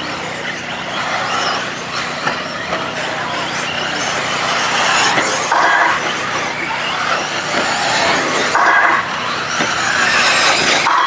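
1/8-scale electric RC buggies racing on a dirt track: the whine of their electric motors and drivetrains rising and falling with throttle, mixed with tyres scrabbling on the dirt. There are two short louder bursts, about halfway through and again near the end.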